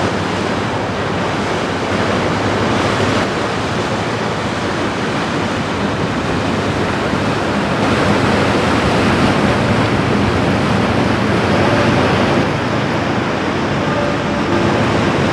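Loaded Rhine motor cargo ship passing close: a steady rush of its bow wave and hull wash through the water, over the low hum of its Cummins KTA50-M diesel engine. The engine's tones come through more clearly near the end as the stern with the wheelhouse draws level.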